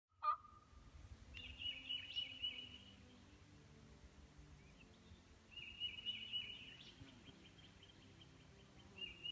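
Faint woodland ambience: a high, rapid trilled call repeats three times about four seconds apart over a steady high hiss, with a short sharp chirp just after the start.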